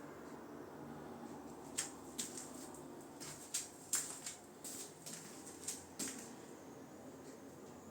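A run of about a dozen sharp, irregular clicks and taps over a few seconds, against a low steady background noise.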